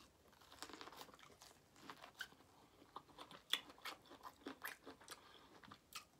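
A person chewing a bite of corn on the cob: faint, irregular crunches and wet mouth clicks.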